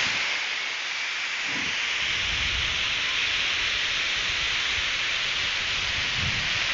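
Ocean surf breaking and washing up a sandy beach: a steady hiss of foaming water, with a couple of faint low rumbles, about a second and a half in and near the end.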